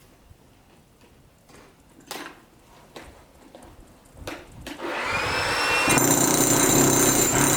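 A few faint knocks, then a motor spins up with a rising whine from about four and a half seconds in and settles into a loud, steady whirring grind.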